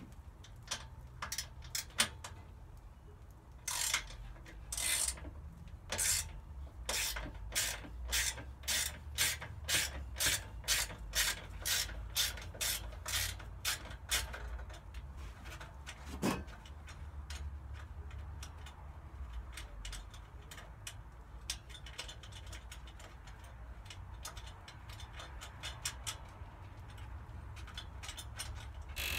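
Hand tool working the small Allen bolt that holds the removable baffle in a motorcycle race-can exhaust. A run of sharp metal clicks, about two a second, gives way about halfway through to quieter scraping and occasional clicks.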